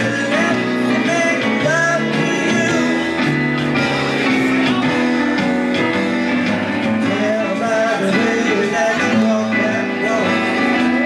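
A singer performing a song into a stage microphone over instrumental backing music.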